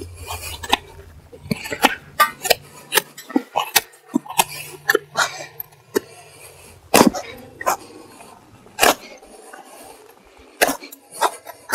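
Dull hoof knife cutting and scraping at a horse's hoof sole and frog, in short, sharp strokes at irregular intervals.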